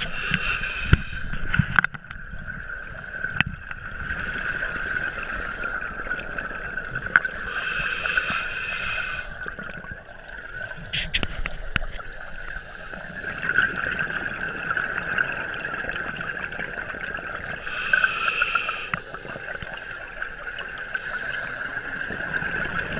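Scuba diver breathing underwater through a regulator: bursts of exhaled bubbles rush out every four to five seconds, over a steady high hum.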